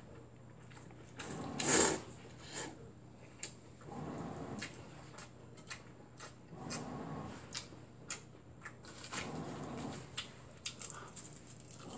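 A person eating cold bibim noodles: a loud slurp of noodles just under two seconds in, then chewing and small clicks of chopsticks against the bowl. A washing machine runs under it with a steady low hum.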